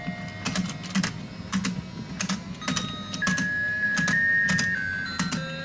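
Battery-powered toy fishing game running: a small motor hums as the pond turns, clicking regularly, while a simple electronic tune plays in plain held beeps.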